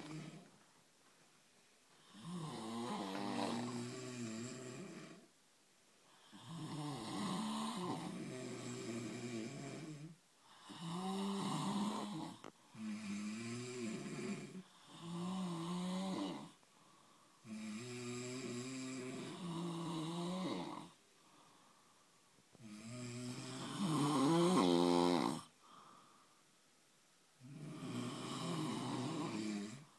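Two men snoring, about eight long, rattling snores of two to three seconds each with short quiet breaths between them. The loudest snore comes about three quarters of the way through.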